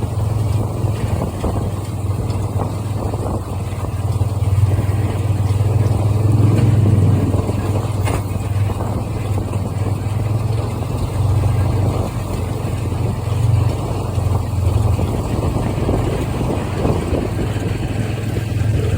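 Engine running steadily with an even low hum, consistent with the tractor that powers the baler.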